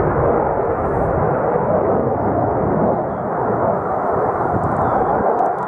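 Jet noise from a JAS-39 Gripen in flight, its single Volvo RM12 turbofan heard as a loud, steady rushing roar that holds level throughout.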